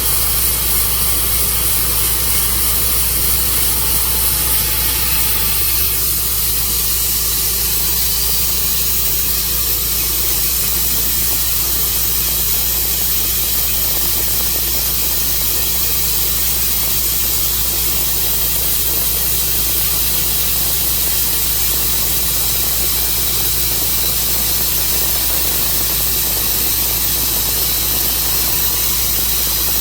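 Sawmill running steadily, its blade cutting through a large elm crotch, a loud continuous hiss over a low engine hum.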